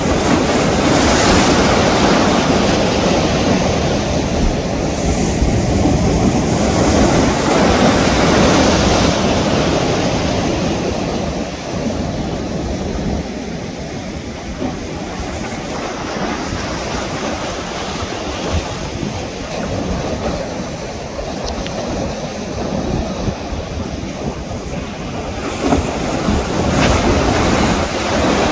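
Ocean surf: a continuous rush of breaking waves, with wind on the microphone. It is loudest in the first ten seconds, eases a little, and swells again near the end.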